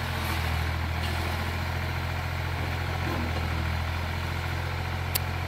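Old Ford farm tractor's engine running steadily at an even speed, a loud low drone, with a single faint click near the end.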